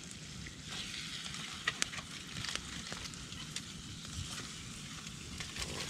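Steaks sizzling as they are laid into a hot frying pan over a wood fire: a steady frying hiss with a few faint clicks.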